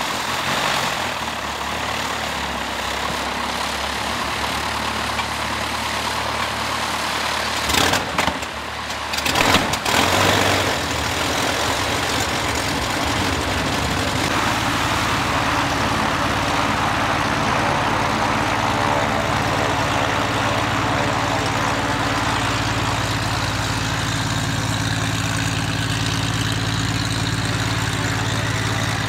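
Single-engine aerobatic propeller plane's piston engine running steadily with a low drone as it taxis. Two short louder rushes of noise come about eight and ten seconds in, and the engine note becomes fuller and steadier from about halfway.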